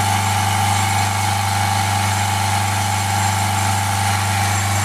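Ford Focus 1.6 TDCi four-cylinder turbodiesel running steadily, held at about 3000 rpm, heard from the open engine bay.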